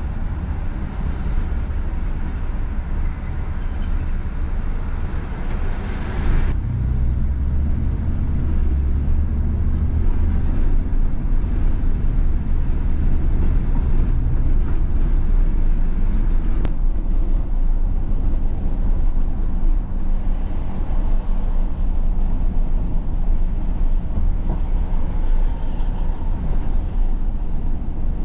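Steady low rumble of a vehicle on the move, road and engine noise, with a brighter hiss that falls away about six seconds in.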